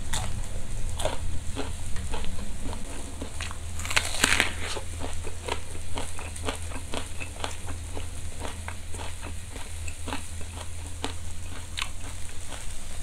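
Close-miked chewing of crunchy raw vegetables: a steady run of wet crunches and clicks, with a louder crunch about four seconds in, over a low steady hum.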